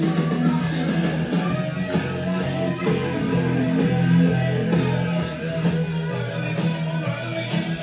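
Guitar-led music playing through a vintage Marantz stereo system's speakers.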